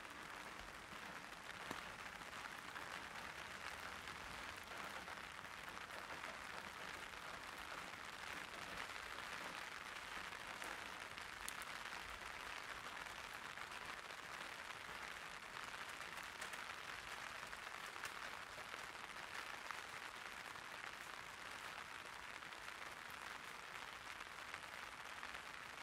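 Light rain falling steadily on an umbrella, an even hiss with a few sharper drop ticks now and then.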